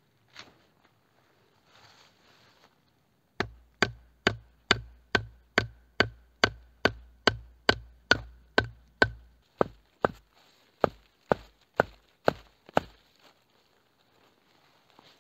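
Wood being chopped by hand: a steady run of about two dozen quick, sharp chopping strokes, two or three a second, starting about three seconds in and stopping near the end, with each stroke ringing slightly.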